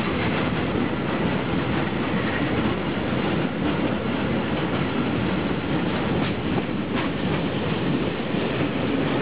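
Freight train of tank wagons passing close by: a steady rumble of steel wheels rolling on the rails, with an occasional clack as wheels cross the rail joints.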